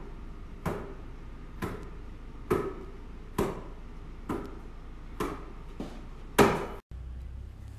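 A 3x3 basketball slapping into the palms about once a second as it is passed around and between the legs in a figure-eight handling drill. The loudest slap comes a little after six seconds, just before the sound cuts off briefly.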